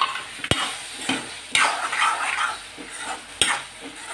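A spatula stirring chunks of raw potato through thick masala in a kadai, scraping against the pan with sharp knocks about half a second in and again near the end, over a light sizzle of frying.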